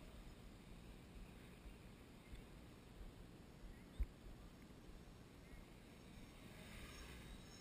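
Near silence: a faint low rumble, with a single short click about four seconds in.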